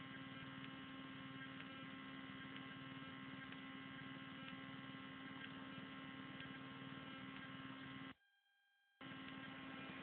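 Faint, steady electrical hum made of several fixed tones, which cuts out abruptly for nearly a second near the end and then comes back.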